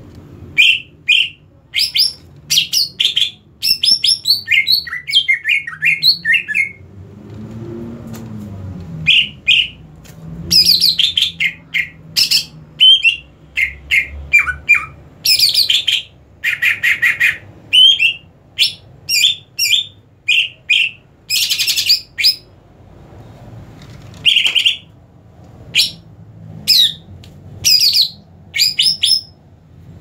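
Caged male greater green leafbird (cucak ijo) singing: a long run of rapid, varied chirps and whistled phrases, broken by a couple of short pauses. The song shows a bird in balanced breeding condition, neither over-excited nor slack, which keepers read as ready for a singing contest.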